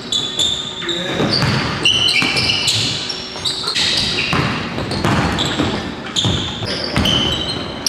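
Basketball sneakers squeaking in short high chirps on a hardwood gym floor, mixed with a basketball bouncing, as players move and dribble on the court.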